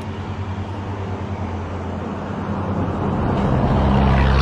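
A passing car: engine hum and tyre noise grow steadily louder toward the end as it approaches.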